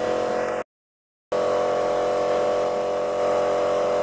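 A steady mechanical drone, like an engine or motor running, holding the same pitch throughout. It cuts out completely for about two-thirds of a second starting just over half a second in, then resumes unchanged.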